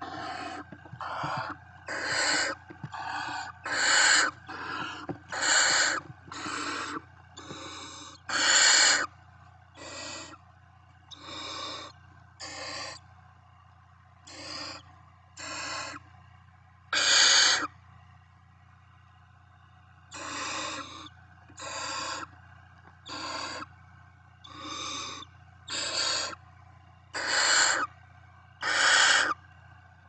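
Barn owl nestlings giving their rasping, hissing begging calls, roughly one a second and varying in loudness, with a pause of about two seconds in the middle.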